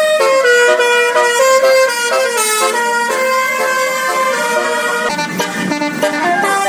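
Indonesian bus's telolet basuri multi-tone horn playing a melody of quick, stepped horn notes.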